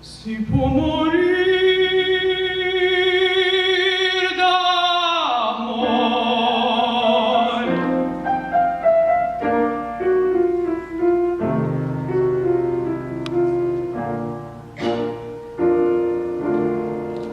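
Operatic singing of an Italian aria with piano accompaniment: the singer holds one long note with vibrato that slides down and stops about five seconds in. The piano then plays on alone in separate notes and chords.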